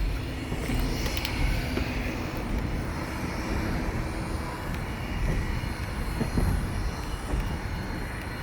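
Passenger railroad coach rolling along the track: a steady low rumble of wheels on rails, with a few short clicks and knocks.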